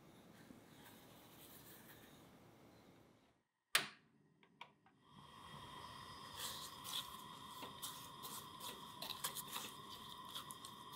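A sharp click about four seconds in, then frozen strawberries and sugar being stirred with a spatula in an enamel saucepan: many small crackling, scraping clicks over a steady faint hum.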